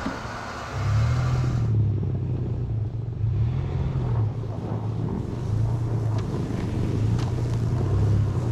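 Pickup truck running with a low, uneven rumble while its front-bumper winch reels in cable, dragging an elk carcass across the snow. A hiss in the first two seconds cuts off suddenly.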